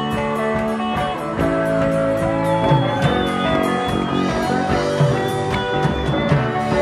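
Live pop-rock band playing an instrumental passage: electric guitar lines with notes bending in pitch, over bass and a steady beat.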